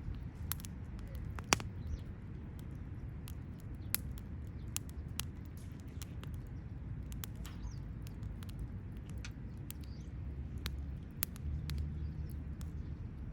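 Wood fire crackling, with irregular sharp pops and snaps over a low steady rumble; the loudest pop comes about a second and a half in.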